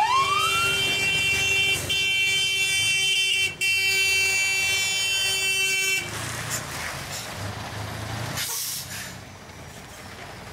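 Fire engine siren rising in pitch, then holding one steady blaring note for about five seconds before cutting off suddenly about six seconds in. After it, a truck engine runs low under outdoor noise.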